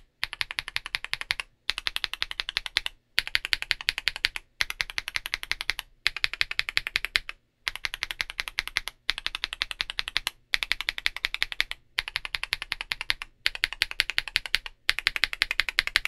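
Mechanical keyboard with linear switches (Outemu Cream Greens and stock Akko Vintage Whites) being pressed in rapid runs of keystrokes. About eleven runs, each a little over a second long, with a brief silence between them.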